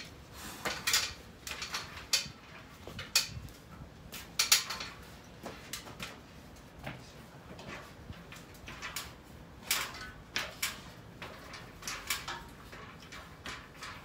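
Irregular metallic clanks, knocks and short scrapes from a person climbing a metal ladder and handling gear on it, loudest about four and a half seconds in.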